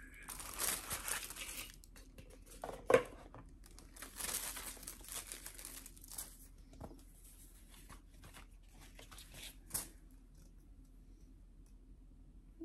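Rustling and crinkling of a Pandora jewellery box and its card insert as a necklace is lifted out and pulled free. There is a sharp click about three seconds in and a few softer clicks later, and the handling goes quiet over the last couple of seconds.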